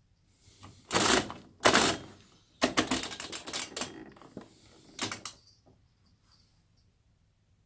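Control knob of a Bendix Duomatiic washer-dryer being turned by hand, clicking through its settings in several bursts of rapid clicks, the longest lasting about a second and a half.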